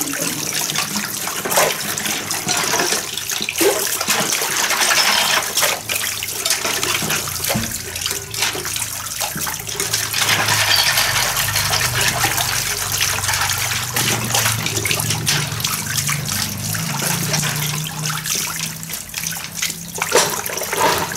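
Water running from a hose into a plastic basin while dishes are washed by hand, with splashing and the clink and knock of dishes and metal bowls against each other and the basin.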